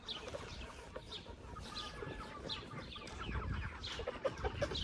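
A flock of 8-week-old Cornish Cross meat chickens clucking and calling, many short falling calls overlapping, with a low rumble in the background.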